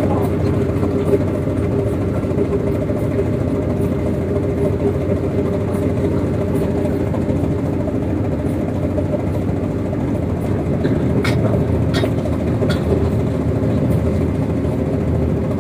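Tugboat's diesel engine running steadily under way, a continuous even drone heard from the deck beside its smoking exhaust stack. A few faint clicks in the second half.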